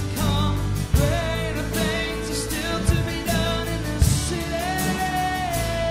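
Live worship song: a man sings lead while strumming an acoustic guitar, backed by a band with drum hits every second or two. He holds one long note near the end.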